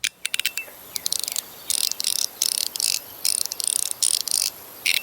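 Fidget toy clicking and rattling in rapid bursts: quick runs of sharp clicks early on, then longer stretches of dense rattling, and a final click near the end.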